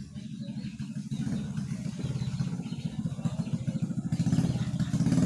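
A small engine running with a fast, even beat, growing steadily louder.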